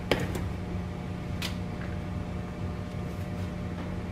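Steady low electrical hum of a kitchen appliance, with two light clicks of a spatula against the rice pan and bowl, one just after the start and one about a second and a half in.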